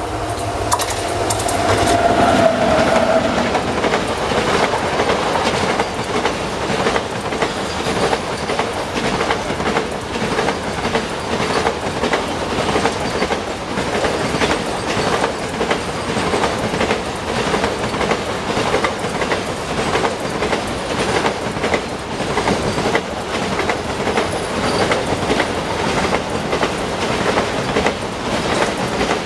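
A freight train of enclosed car-carrier wagons running past close by. Its wheels clatter over the rail joints in a dense, steady run of clicks. It grows louder over the first couple of seconds, with a steady tone at first that fades out.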